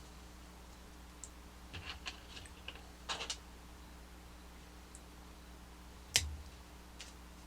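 Scattered light clicks and taps of small plastic toy parts being handled, with a cluster of clicks around the middle and one louder knock about six seconds in.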